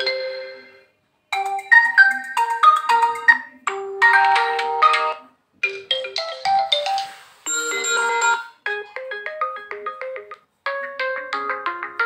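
Built-in ringtones of an Oppo Reno 6 5G played one after another through the phone's speaker as each is tapped: about half a dozen short melodic chime tunes, each cut off after a second or two when the next one starts.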